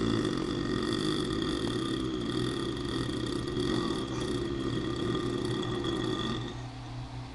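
A man's long, drawn-out burp that stops about six and a half seconds in.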